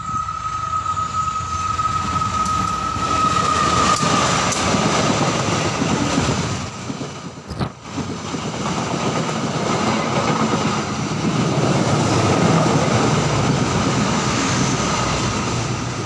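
KAI passenger train passing close by: a loud, steady rumble and rattle of wheels on the rails as the locomotive and coaches go past, with a high steady whine that is strongest in the first few seconds. The sound cuts off suddenly near the end.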